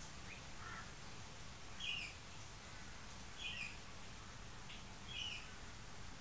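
A bird calling: three short falling notes about a second and a half apart, over a low steady hum.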